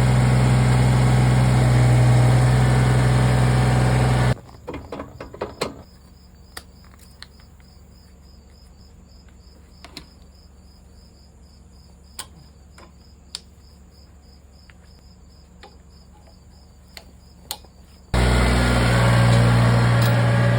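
Kubota BX23S tractor's three-cylinder diesel engine idling steadily, cutting off abruptly about four seconds in. Then a quiet stretch with an insect chirping steadily about twice a second and scattered light clicks and knocks. The engine is running again near the end.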